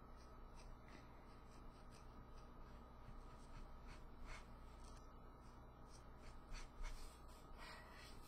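Copic marker nib stroking across cardstock in a run of faint, short scratches, a couple a second, as a patch of the drawing is coloured in.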